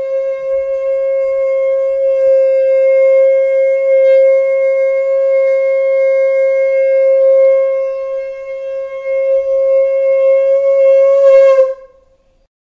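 Conch shell (shankh) blown in one long, loud, steady note, held for nearly twelve seconds and cut off about a second before the end.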